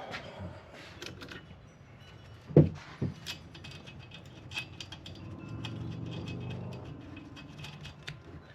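Metal parts and tools handled while a windshield wiper arm is fitted: scattered clicks and clinks, with two loud knocks about two and a half to three seconds in. A low hum swells and fades in the second half.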